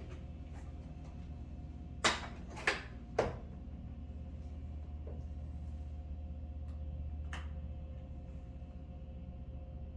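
Three sharp knocks about half a second apart, roughly two seconds in, with a fainter click later, as hard parts, likely aluminum pieces, are picked up and handled. A steady low hum runs underneath.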